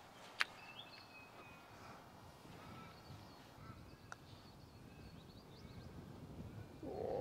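A putter strikes a golf ball once with a sharp click. After it comes quiet outdoor background with faint birds chirping and a softer single tick about four seconds in.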